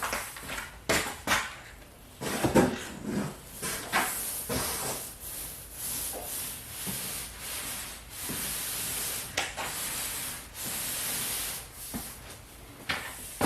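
18-inch paint roller with a 3/4-inch nap rolling wet primer across a smooth drywall ceiling: long, even hissing strokes lasting a couple of seconds each. There are a few knocks and clicks in the first few seconds.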